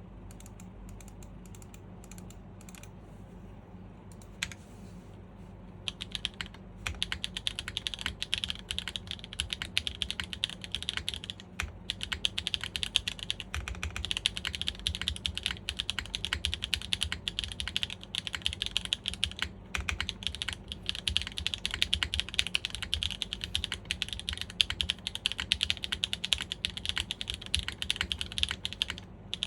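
Typing on a TGR x GAF 910 PC mechanical keyboard with stock SWK Jieum V2 switches, a polypropylene plate in top mount and GMK ABS keycaps. One lone keystroke comes about four and a half seconds in, then a fast, continuous stream of key clacks starts about six seconds in, over a low steady hum.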